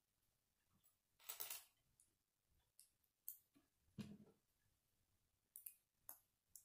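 K'nex plastic rods and connectors being handled and snapped together: scattered small clicks, with a longer plastic rustle about a second in and a duller knock around four seconds.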